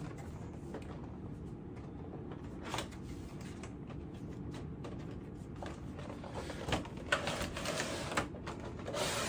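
Cardboard toy box and its packaging being opened by hand: scattered light clicks, scrapes and rustling over a low steady hum, getting busier in the last couple of seconds.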